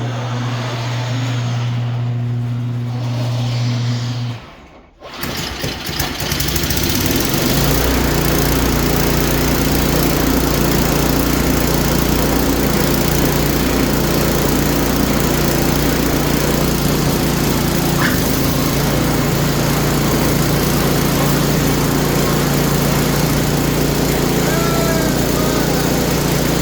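A motor hums steadily and stops about four seconds in, fitting an electric garage door opener. Then the small engine of a Craftsman snowblower is started and settles into a steady run, with no squeak now that its gearbox is filled with gear lube.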